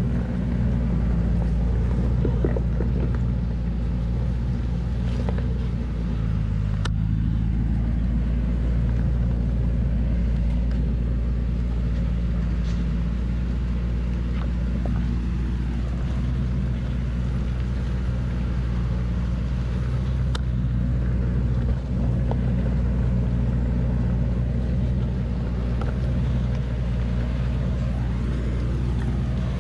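Engine of a heavily loaded log truck running steadily at low speed as it crawls through deep mud ruts, a low, even drone.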